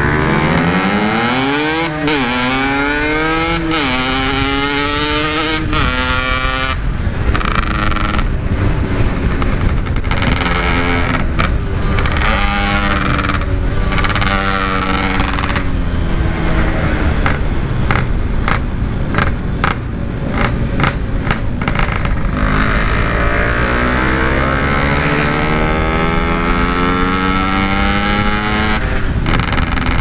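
Yamaha RX-King two-stroke single-cylinder engine ridden hard through a stock-style aftermarket exhaust. It pulls up through three gears in the first six seconds, its pitch rising and dropping back at each shift. It then runs steadier and builds speed again near the end.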